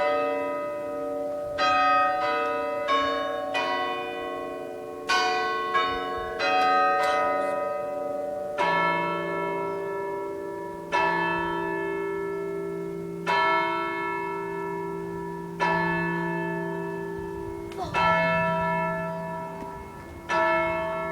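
Church clock bells chiming: a short tune of quick notes on several bells, then from about nine seconds in a single deeper bell striking the hour slowly, about every two seconds, each stroke ringing on. These are the seven o'clock strikes.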